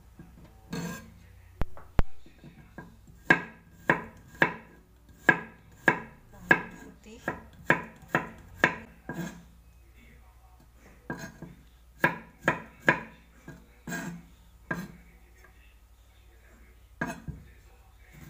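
Kitchen knife chopping on a wooden cutting board, a sharp knock at each stroke, about two a second, as spring onions are chopped and then garlic cloves sliced. The strokes come in runs with short pauses between them.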